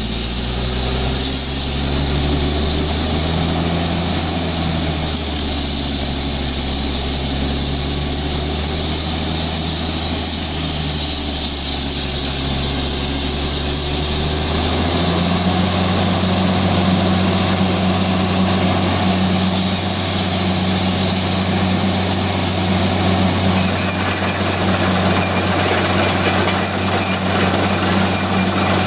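Borewell drilling rig running: its engine hums steadily over a strong, steady hiss of air, and the engine note steps up to a higher pitch about halfway through.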